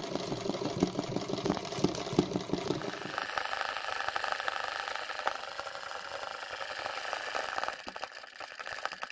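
Sewing machine running fast for free-motion embroidery, the needle stitching in a rapid even patter. About three seconds in, the sound shifts to a higher, lighter whirr, and near the end it breaks into short stop-start runs.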